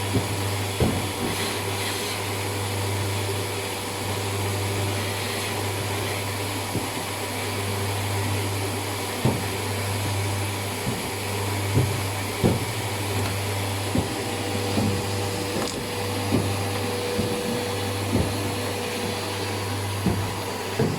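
Vacuum cleaner running steadily, its hose's flat nozzle sucking lint out of the tube inside a tumble dryer, with scattered knocks and scrapes of the nozzle against the tube.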